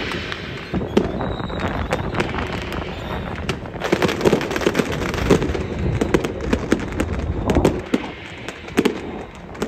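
Strings of firecrackers going off in a dense run of sharp pops, busier from about four seconds in.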